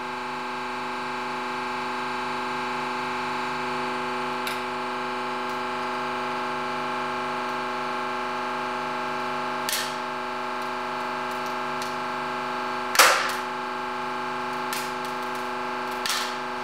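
Hydraulic press running with a steady hum while a pine board bends under the ram and gives off a few sharp cracks at intervals, the loudest about two-thirds of the way through. The cracks are the pine beginning to split under a load of around one and a half to nearly two tonnes.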